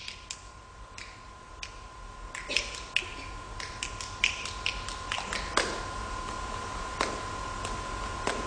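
A solo dancer's sharp, irregular hand claps and snaps, with a few heavier strikes that are likely his feet hitting the stage floor. A steady faint high-pitched hum runs under them.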